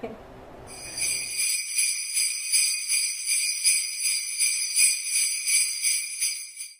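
Sleigh bells shaken in a steady rhythm, about two shakes a second, for several seconds. They fade out just before the end.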